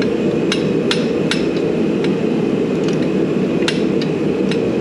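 Sharp metal-on-metal taps of a hammer or hand tool striking a part: three quick taps in the first second and a half, then one more near the end, over a steady low hum.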